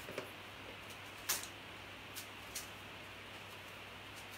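A few short, light clicks from florist's snips and leaves being handled, the loudest about a second in, over a faint steady hum.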